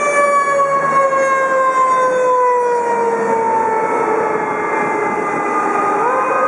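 Fire engine's mechanical siren, its tone sliding slowly down as it winds down, then spinning back up sharply near the end, over the rumble of the passing truck.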